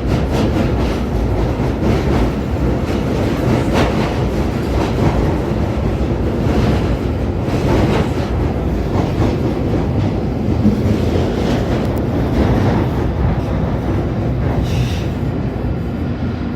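London Underground Northern line train running through a tunnel, heard from inside the carriage: a steady loud rumble with a few scattered clicks of the wheels over the rails.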